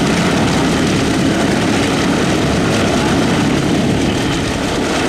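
Chance Vought F4U-4 Corsair's Pratt & Whitney R-2800 Double Wasp radial engine running steadily at low power as the fighter taxis, its propeller turning.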